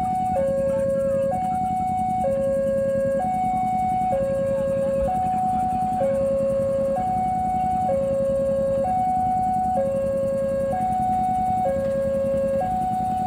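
Railway level-crossing warning alarm sounding as a train approaches: two electronic tones alternating high and low, each held about a second, in an even, unbroken cycle, over a steady low hum.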